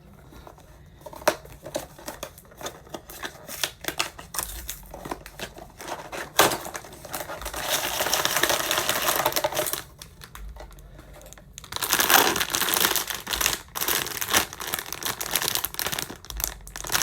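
A blind box's packaging being opened by hand: scattered crackles and rustles, with longer stretches of steady crinkling about eight seconds in and again from about twelve seconds.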